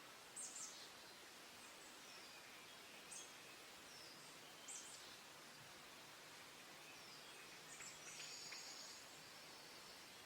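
Faint calls of small wild songbirds: short high chirps every second or two, with a longer buzzy trill about eight seconds in, over a steady outdoor hiss.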